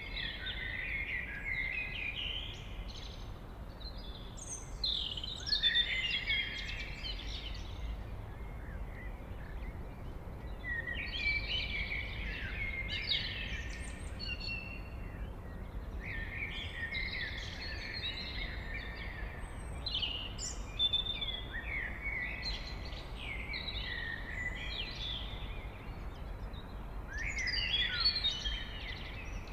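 Common blackbird singing, one song phrase every few seconds, each lasting two to three seconds, over a steady low background rumble.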